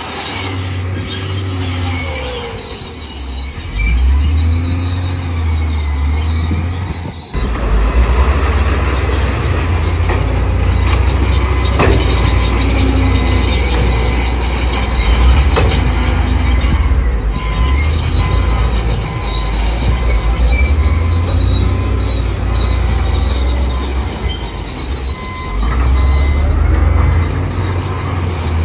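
Heavy diesel earthmoving machinery working: engines running under changing load, with faint gliding squeals over a steady mechanical rumble. There is a sudden break about seven seconds in.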